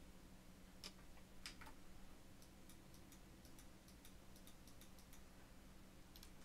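Near silence with faint, irregular computer mouse clicks as the hair is combed, over a low steady hum.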